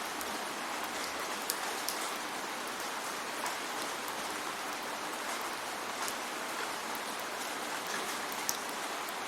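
Steady rain falling, an even hiss with scattered sharper ticks of individual drops landing.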